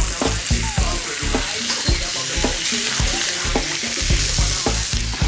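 Rabbit pieces sizzling as they brown in hot fat in a stainless steel pot, with steady frying hiss throughout. Metal tongs click and knock against the pot as the pieces are turned.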